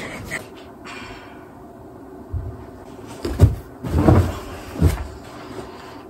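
A few soft thumps and rustles of a person dropping into an upholstered armchair and handling a book, clustered in the second half; a couple of short clicks come right at the start.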